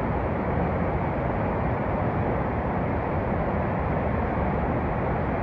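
A river in flood: muddy torrent water rushing past, a steady deep rush with no break.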